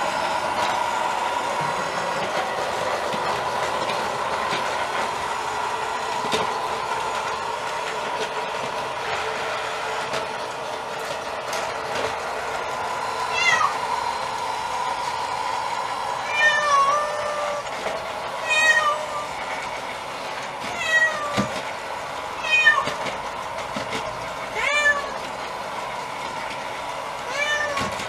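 A cat meowing about seven times in the second half, short calls a couple of seconds apart, over the steady hum of a robot vacuum cleaner running on the floor.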